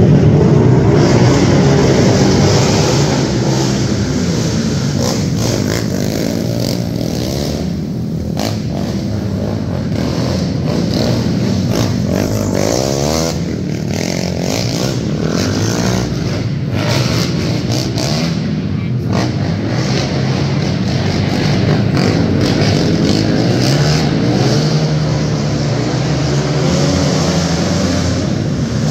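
Several sport quad ATVs racing together on a dirt track. Their engines rev up and back off again and again as the riders accelerate and throttle down through the turns, loudest in the first couple of seconds as they pull away.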